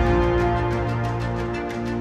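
Background music: held chords over a fast, light ticking beat.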